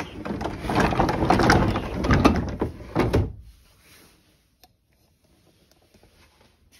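Old wooden sliding door being pushed shut, rolling and rattling along its track for about three seconds before it stops. A single small click follows a little later.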